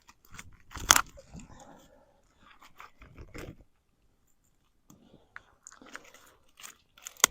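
Wood snapping and crackling at a freshly built campfire: scattered sharp cracks with quiet gaps between, the loudest about a second in.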